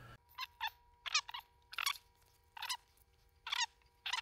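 Fast-forwarded recording of hand work with a dial caliper: short, high-pitched squeaky chirps, roughly one a second, over a faint steady whine.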